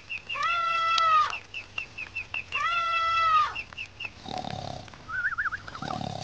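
Two long, wavering cries from a baby monkey, each about a second, with ducklings peeping in quick short pips around and between them. A warbling trill and a couple of rough low sounds follow near the end.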